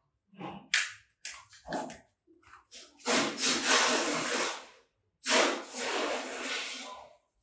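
Folded sandpaper rubbed by hand over a terrazzo stair step: several short scraping strokes, then two long strokes of about two seconds each.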